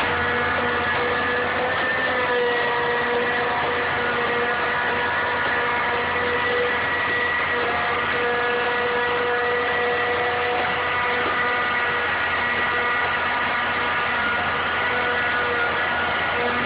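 Caterpillar 3208 V8 diesel engine of a 1986 CAT 225LC excavator running steadily, with a steady whine over the engine note.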